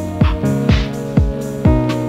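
Background music with a steady beat, a kick drum about twice a second under sustained melodic notes.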